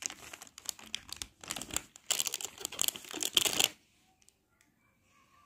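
Clear plastic wrapping crinkling and rustling in bursts as plastic clothes clips are pulled out of it. The rustling stops suddenly about four seconds in.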